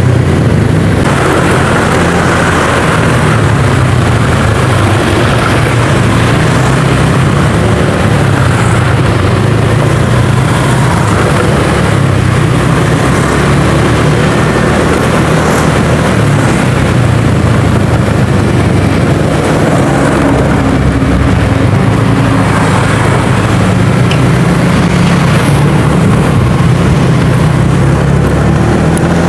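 Steady riding noise from a Honda scooter moving slowly through city traffic: the engine and road noise are mixed with a dense, even rush, with no distinct events.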